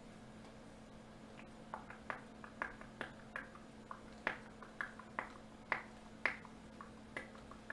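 Trading cards being handled: a run of light, irregular clicks and snaps, two to three a second, starting a couple of seconds in, over a faint steady hum.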